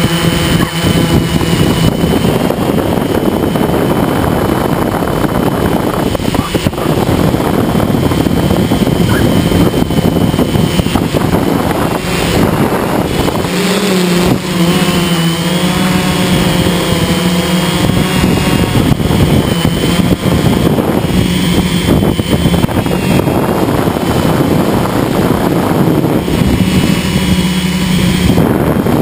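Multirotor drone's electric motors and propellers whining steadily, heard from the camera on board, with wind buffeting the microphone. The motor pitch wavers as the drone swoops low over the grass about halfway through, then settles again.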